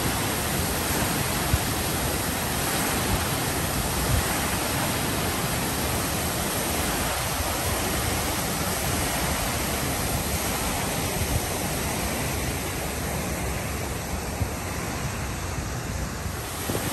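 Steady rushing and splashing of water from a large park fountain.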